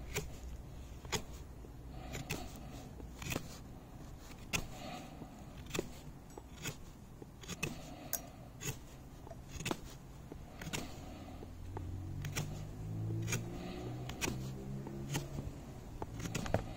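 Fixed-blade knife shaving a freshly cut green stick to a point: short crisp slicing strokes, about one a second. A low hum drones for a few seconds near the end.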